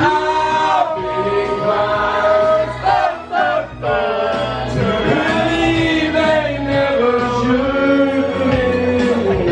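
A man singing into a microphone over backing music, holding long notes that bend in pitch.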